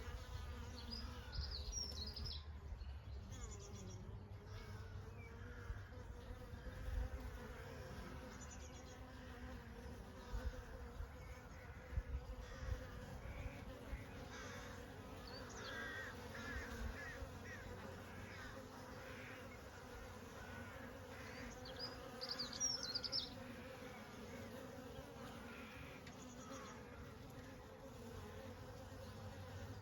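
Honey bees buzzing in a steady, continuous hum.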